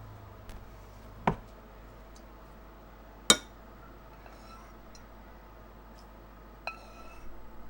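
Glassware and kitchen utensils clinking: two sharp clinks about two seconds apart, then a clink that rings briefly near the end, followed by a few lighter clinks.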